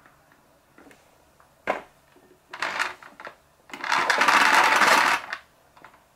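A knock, then the power cord being pulled out of a Toshiba VC-8300 vacuum cleaner's cord reel: a short pull, then one long pull lasting about a second and a half.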